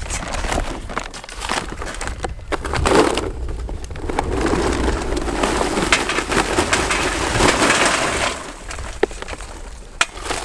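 Charcoal briquettes poured from a paper bag into a metal charcoal chimney: a dense clattering rattle for about four seconds in the middle, with rustling of the bag and a few clicks before and after.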